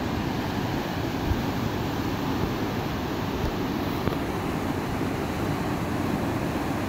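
Swollen, muddy river rushing over rocky rapids: a steady, deep rush of water.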